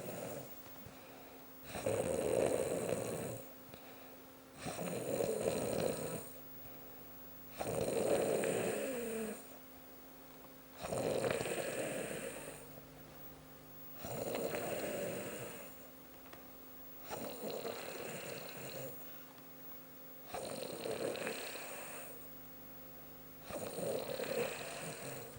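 A woman snoring in her sleep: a long snore about every three seconds, eight in all, with quiet breathing gaps between.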